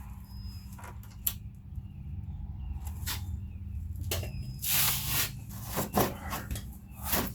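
Hands working the latch rod and clips inside a Jeep Wrangler door: scattered clicks, scrapes and rustles, with a sharp click about a second in and louder rustling near the middle and end, over a steady low hum.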